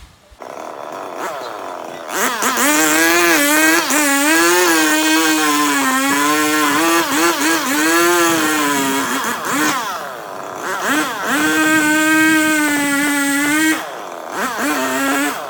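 Two-stroke chainsaw revving up about two seconds in and running at high revs, its pitch sagging and recovering again and again as it works. The revs ease off briefly twice, in the second half and near the end.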